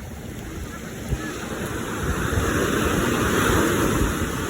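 Tractor-drawn hay baler running, growing louder over the first few seconds, with rough low wind buffeting on the microphone.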